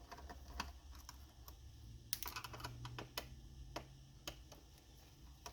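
Faint, irregular plastic clicks and taps of a Toshiba Satellite laptop keyboard's keys as it is handled.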